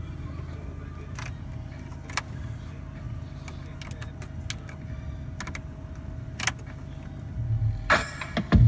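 2007 Ford F-150's engine idling steadily shortly after a cold start in snow, heard from inside the cab, with the light clicks of dashboard buttons being pressed. Near the end the radio comes on and gets louder.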